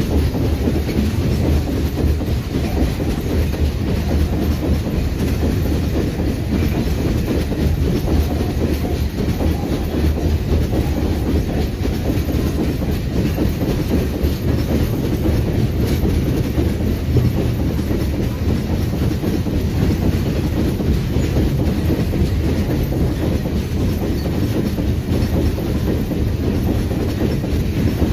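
A long freight train of ore gondola wagons rolling past at steady speed, its steel wheels rumbling on the rails without a break.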